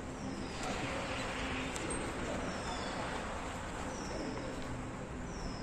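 Steady background noise in a large hall, with short high chirps falling in pitch about every one to two seconds.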